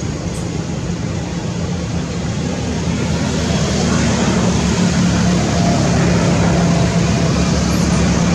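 Steady engine hum from a motor vehicle, growing louder about three seconds in.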